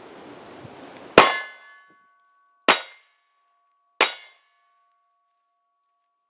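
Three pistol shots from a CZ P10c, about a second and a half apart, each with a metallic clang that rings on afterwards like a hit steel plate.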